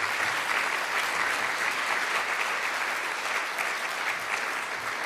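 Audience applauding: many hands clapping in a steady, dense patter that eases slightly near the end.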